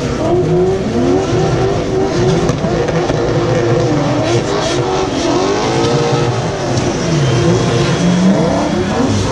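Drift cars' engines revving hard, their pitch swinging up and down again and again as they slide through a corner, with more than one engine heard at once.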